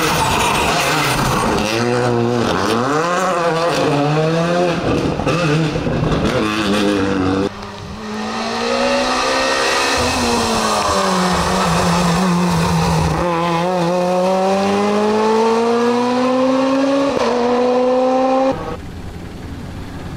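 Rally car engine revving hard, its pitch climbing through the gears and dropping back at each shift, with one long climbing rev later on. The sound breaks off abruptly twice.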